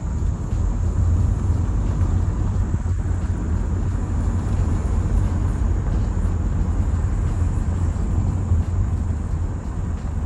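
Steady low rumble of a car being driven slowly, engine and tyre noise heard from inside the cabin.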